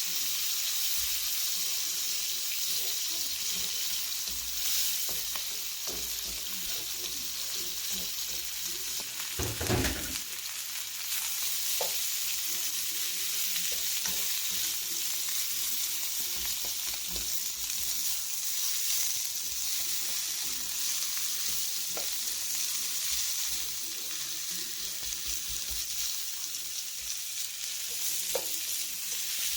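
Food sizzling as it is stir-fried in a pan, a steady hiss with a few light clicks, and a low thump about ten seconds in.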